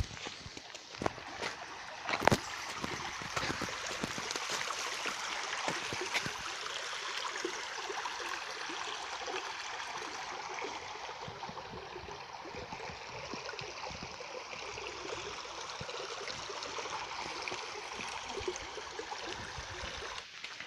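Steady rush of a flowing stream, with a few sharp knocks in the first couple of seconds.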